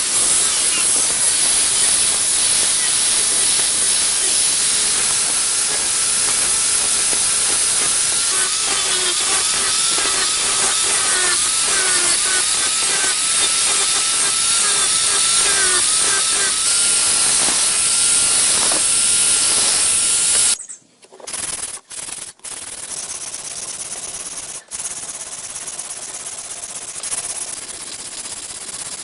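A handheld power tool runs against the work with a loud, steady hissing, abrasive sound, its motor pitch wavering as it is pressed on. About twenty seconds in it cuts off abruptly and a quieter steady hiss follows, broken by a few brief dropouts.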